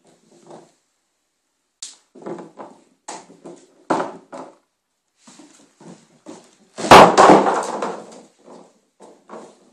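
Border collie puppy gnawing a beef chew bone: irregular crunching and scraping clicks of teeth on bone, with one loud thump about seven seconds in.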